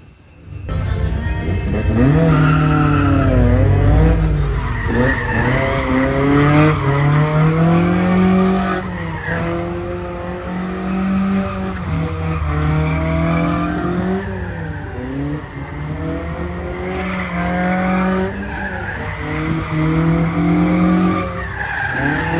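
Car driven hard on a gymkhana course: its engine revs up and drops back again and again as it is worked through the course, with tyres squealing and skidding. The engine comes in suddenly about half a second in.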